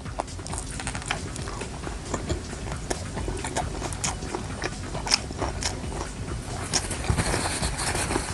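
Close-miked chewing of grilled street food: irregular mouth clicks and smacks as it is bitten and eaten.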